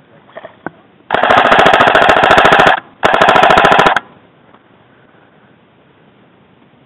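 Airsoft rifle firing close by in two long rapid-fire bursts of fast clicking shots, the first about a second and a half long and the second about a second, with a brief gap between.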